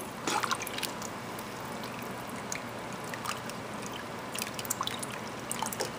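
Spatula stirring chicken and vegetables in water in a large pot: soft sloshing of the liquid with scattered light clicks of the spatula against the pot.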